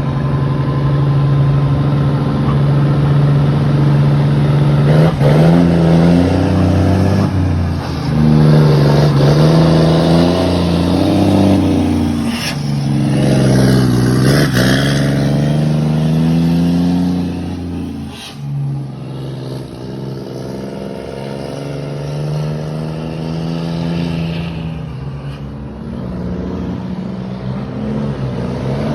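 Scania truck engine revving through its exhaust, the pitch climbing and falling several times, then running quieter and steadier in the second half.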